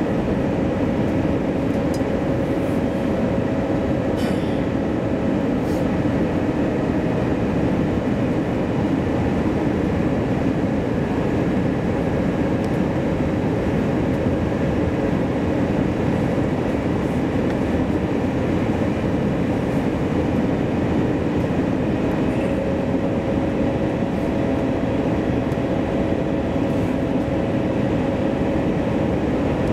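Steady cabin noise inside an Airbus A321-200 airliner on approach, from the engines and rushing air, with a faint steady whine.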